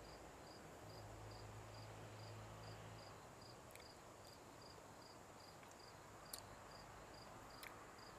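Faint, even chirping of a cricket, about two to three short high chirps a second, over a faint steady high insect trill, with a few faint clicks.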